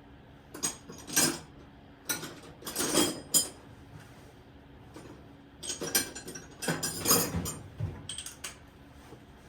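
Hand ratchet wrench clicking in four short bursts of rapid strokes, with pauses between them, while loosening bolts on a 305 V8 engine.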